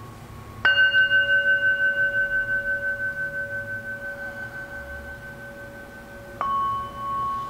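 Metal singing bowls struck with a wooden mallet: a lower-pitched bowl is struck about a second in and rings on with a pulsing, slowly fading tone, and a higher-pitched bowl is struck near the end.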